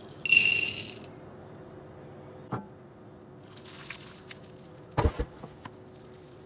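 Kitchenware against a glass mixing bowl: a bowl clinks on the glass bowl with a bright ringing clink about half a second in. Melted chocolate is then poured in with a soft hiss, and two sharp knocks follow about five seconds in.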